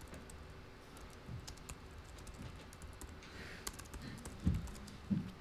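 Typing on a laptop keyboard: quiet, irregular key clicks. Near the end come a couple of low thuds, the loudest sounds here.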